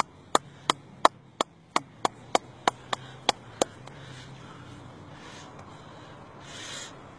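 Hand claps at a steady pace of about three a second, used to call fish to the water's edge; the clapping stops about three and a half seconds in.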